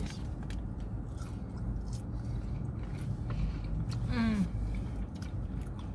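Close-up chewing and biting of burgers, soft mouth clicks over a low steady hum, with one short vocal sound about four seconds in.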